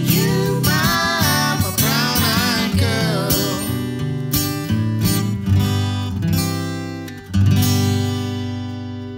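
Acoustic guitar playing, with a man and a woman singing together over it for the first few seconds. About seven seconds in, one last strummed chord rings out and slowly fades: the close of the song.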